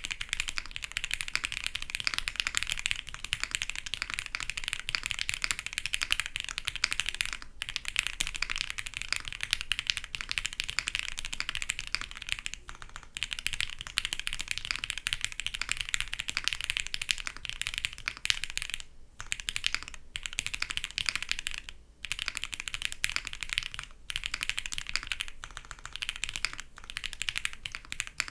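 Fast continuous typing on a Table Gadget 67 gasket-mount custom mechanical keyboard, with PC plate, foam, Gateron Yellow linear switches lubed with Krytox 205g0, and CMK keycaps. Keystrokes run in dense runs, with a few brief pauses.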